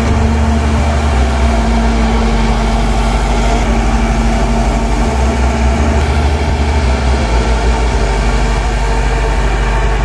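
Diesel engine of a Shantui crawler bulldozer running steadily as the dozer pushes and grades sand with its blade.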